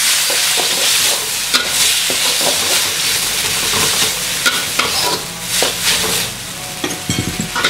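Instant noodles and scrambled egg sizzling in a hot metal wok while a metal spatula stirs and tosses them, with repeated scrapes and clinks of the spatula against the pan.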